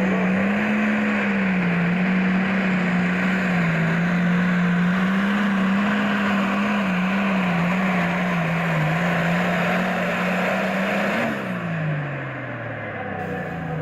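Super farm pulling tractor's diesel engine running flat out under load down the track, its pitch holding fairly steady with slight wavering. About eleven seconds in, the engine winds down, its pitch falling as it comes off the throttle at the end of the pull.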